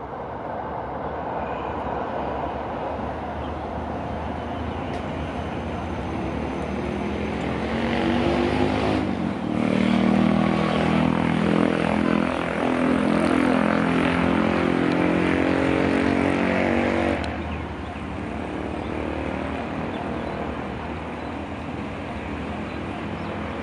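Hitachi diesel-electric locomotive 4510 hauling express train 86 past on the track. Its engine grows louder to a steady drone that peaks in the middle, then cuts away sharply about 17 seconds in. The coaches' steady rumble follows.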